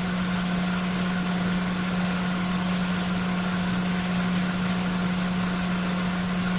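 Hot air rework gun, set to 420 °C and airflow 42, blowing steadily: a constant hum with an even hiss of air as it heats a USB-C controller chip on the logic board to desolder it.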